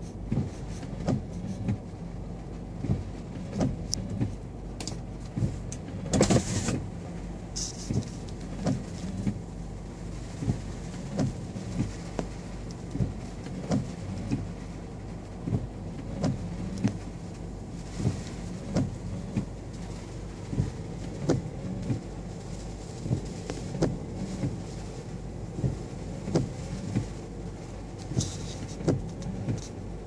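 Windshield wipers sweeping rain off the glass of a stationary car, heard from inside the cabin over the steady hum of the car running, with a sharp knock about once a second as the blades reverse. A louder rush of noise comes about six seconds in.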